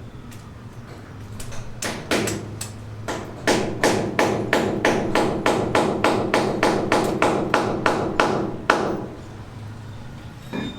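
Hammer blows, a few scattered strikes and then a steady run at about three blows a second lasting some five seconds, each blow with a short ring.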